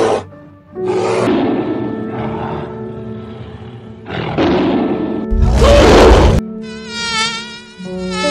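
Animal growls, then a tiger roaring, loudest about six seconds in, over background music with steady held notes. Near the end a buzz like a flying insect's, its pitch wavering, takes over.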